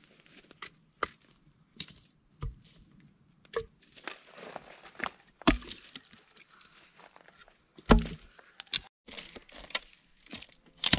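Footsteps crunching over dry twigs and brash, with dead branches cracking and snapping as they are picked up and handled. A few snaps come with a dull thump, the loudest about eight seconds in.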